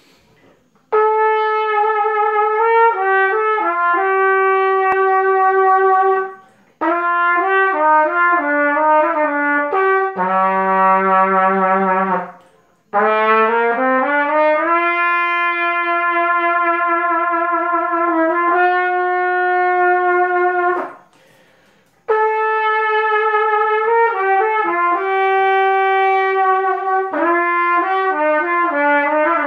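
A solo trumpet plays a melody with no accompaniment. It plays four phrases of held and moving notes with brief pauses between them, and one phrase opens with a slurred upward glide.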